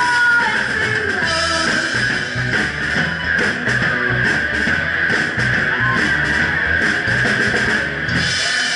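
Live rock band playing through the PA: electric guitar, bass and a Ludwig Vistalite drum kit. The bass and drums stop about eight seconds in as the song ends.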